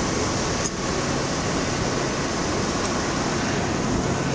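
Steady mechanical hum of an idling vehicle engine and fan noise, with one short click a little under a second in.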